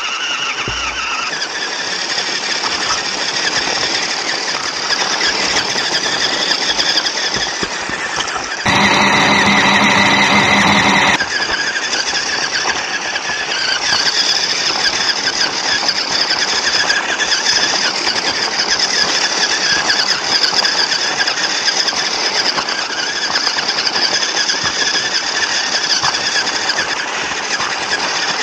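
Electric drive motor and gearbox of a 1/12-scale LDRC Unimog RC truck whining as it drives over gravel and dirt. About nine seconds in, a louder, steadier whine lasts about two and a half seconds, then stops suddenly.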